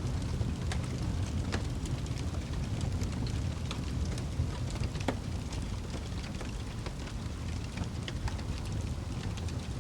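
Wood fire burning in a fireplace: a steady low rumble of flames with frequent small crackles and pops scattered throughout.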